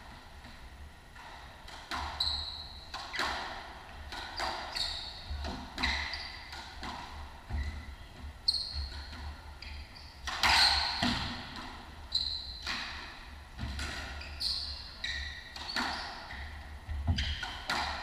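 Squash rally: the ball is struck by racquets and smacks off the court walls, with sharp cracks echoing around the court about every half-second to a second from about two seconds in. Short squeaks from players' shoes on the wooden floor come between the shots.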